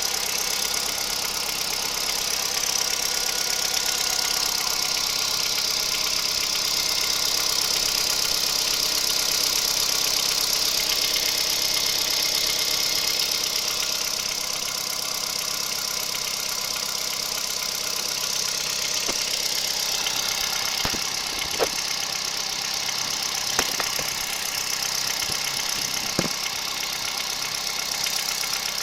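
Kia Picanto 1.2 G4LA four-cylinder petrol engine running steadily with an unexplained knock, which appeared recently and which the owner cannot place. Three sharp clicks stand out in the latter half.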